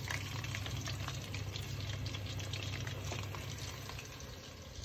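Fries deep-frying in hot oil on their second fry, to crisp them up: a steady sizzle with fine crackling over a low steady hum, easing slightly near the end.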